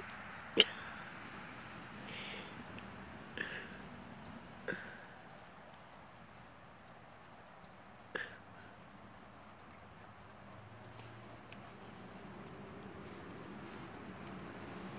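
Insects chirping in a quick, steady pulsing rhythm, with a few sharp knocks and scuffles from two Great Pyrenees dogs moving about close by; the loudest knock comes about half a second in.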